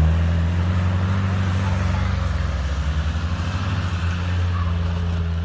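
Off-road 4x4 vehicle's engine running at low revs: a steady low drone with a fast, even pulse.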